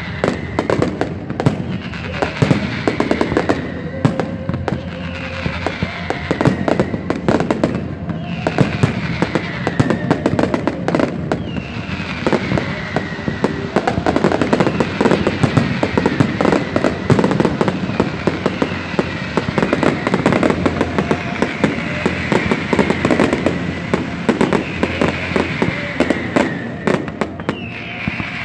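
Fireworks going off in a dense, continuous barrage of bangs and crackles, with music playing over them. A falling whistle-like tone repeats about every two seconds.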